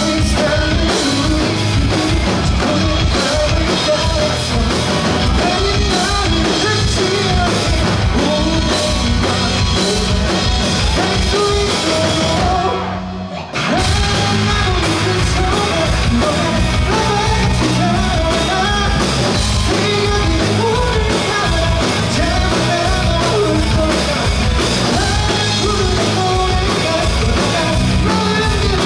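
Live rock band playing with sung vocals over drums and guitars. The band cuts out for a moment near the middle, then comes back in.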